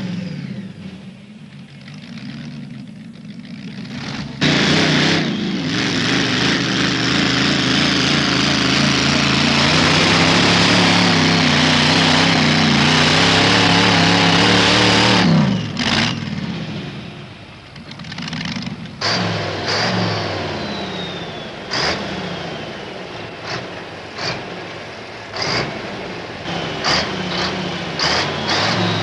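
Supercharged V8 engine of a modified pulling tractor idling, then opening to full throttle about four seconds in and running flat out for about eleven seconds with its pitch slowly climbing, before the throttle is cut and the sound falls away. After that an engine runs lower, with a string of short, sharp revs.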